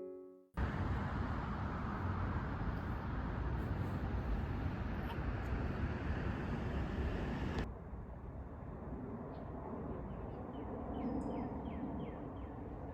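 Outdoor ambience: a steady rumble and hiss, likely distant traffic, that cuts off sharply about two-thirds of the way through. A quieter stretch follows, in which a small bird chirps a quick run of short falling notes.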